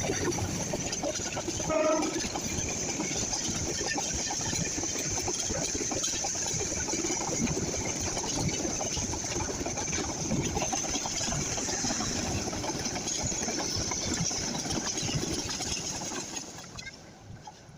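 Train running along the rails, a steady rumble and clatter with a high hiss over it, fading away near the end.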